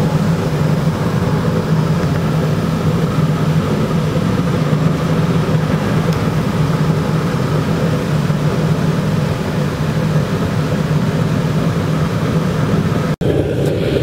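Gravity-fed waste-oil burner running on oil, with a 12-volt car blower forcing air into the flame: a steady roar with an even low hum underneath.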